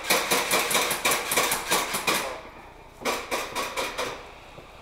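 Airsoft gun firing in rapid shots, about five or six a second. The first string stops about two seconds in, and a second string follows about a second later.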